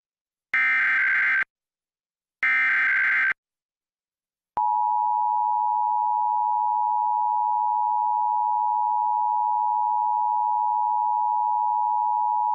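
Emergency Alert System broadcast test: the last two bursts of the SAME digital header, short warbling data tones a second apart. About a second later comes the EAS two-tone attention signal (853 and 960 Hz together), a steady loud tone held for about eight seconds that cuts off abruptly.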